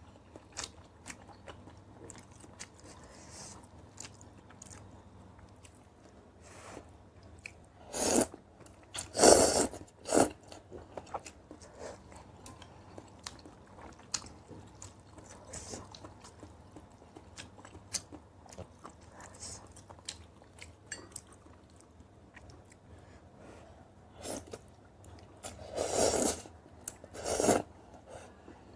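A person eating kimchi noodles and kimchi close to the microphone: steady chewing and small crunching clicks, with a few louder, noisier mouthfuls about a third of the way in and again near the end.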